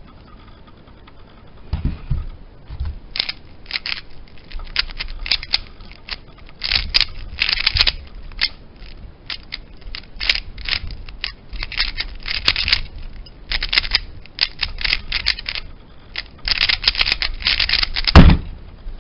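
A Rubik's-type speedcube being turned fast in a timed solve: flurries of rapid plastic clicking and clacking for about fifteen seconds. It ends with a loud thump of hands slapping down on the Stackmat timer's pads to stop it.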